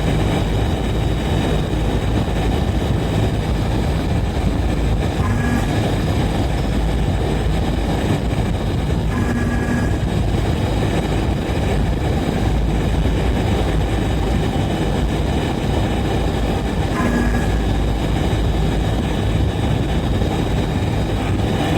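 Steady, loud rumbling noise of foundry machinery at work, unbroken throughout. Three short tones cut through it, about 5, 9 and 17 seconds in.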